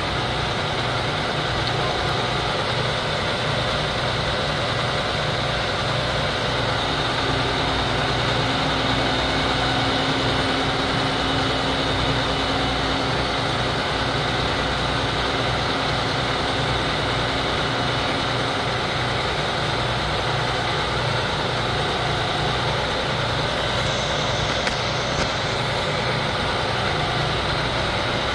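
Heavy truck engine of a tree removal rig running steadily.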